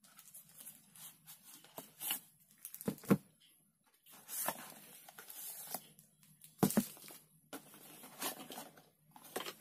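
Small cardboard box being opened by hand: a seal sticker peeled off and the lid and flaps scraping and rustling, with two sharp knocks, about three seconds in and again near seven seconds in.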